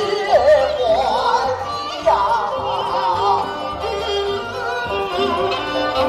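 Chinese opera-style singing over bowed-string accompaniment. The voice wavers with a wide vibrato in two phrases, near the start and again about two seconds in.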